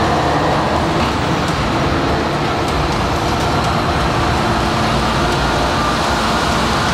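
Mercedes-Benz Actros tractor-trailer driving by at low speed, its OM 471 straight-six diesel running with tyre noise, steady throughout.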